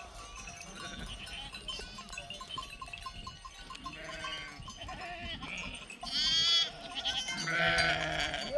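A flock of small livestock bleating: several overlapping wavering bleats, the loudest about six seconds in and another just before the end.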